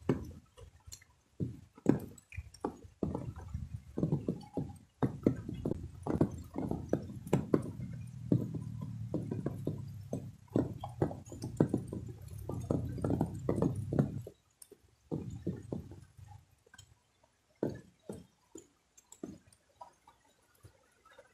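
Water splashing and sloshing irregularly as a person wades through a shallow, muddy pond, with a low rumble under the splashes that stops about two-thirds of the way through.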